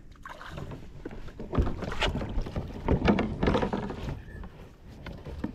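Water sloshing and knocking against a kayak's hull in uneven bursts, with a few sharp knocks.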